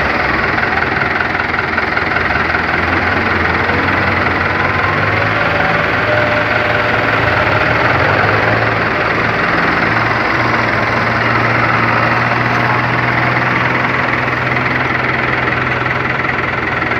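Diesel farm tractor engines running steadily with a low hum while the tractors work in soft mud, their pitch lifting slightly about three seconds in.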